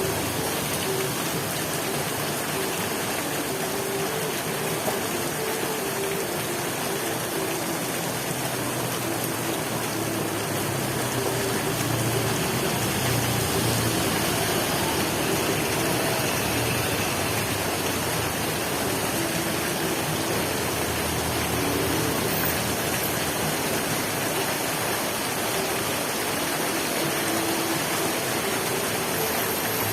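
Heavy rain falling steadily, an even hiss of downpour with no let-up.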